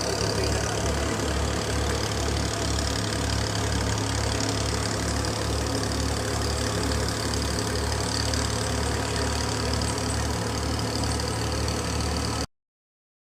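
Engine of farm harvesting machinery running steadily under load, with a low, even pulsing about twice a second. It cuts off suddenly near the end.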